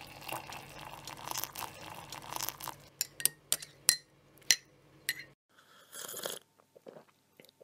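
Liquid pouring into a glass, then a run of sharp clinks of glass about three seconds in, and a short softer noise near the end.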